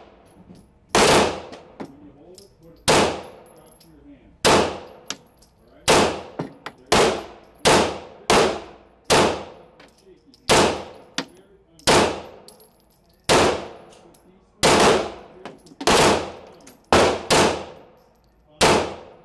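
9mm pistol firing a string of about sixteen shots, roughly one a second at uneven spacing, each shot followed by a ringing echo.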